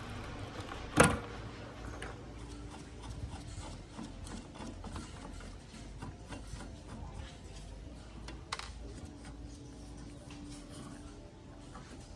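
Hand tools working on a rusty sheet-metal fog machine switch panel: a sharp snap about a second in as pliers pull at a switch's wire connector, then light metal scraping and small clicks as a screwdriver pushes on the switches, with another sharp tick past the middle.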